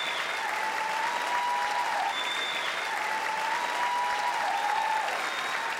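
Large theatre audience applauding steadily, with a few long high tones heard over the clapping.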